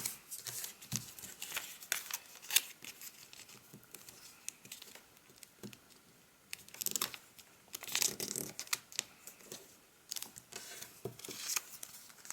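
Square of origami paper being handled and folded by hand: irregular crisp crinkles and rustles as the folds are pressed and creased, in clusters with quieter gaps between.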